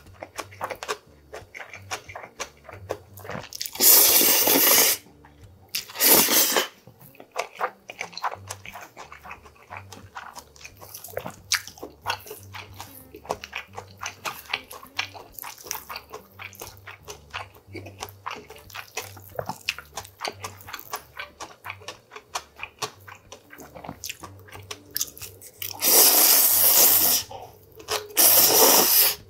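Bibim-myeon noodles slurped up from chopsticks in four loud slurps, two about four and six seconds in and two near the end, with chewing and many small wet mouth clicks between.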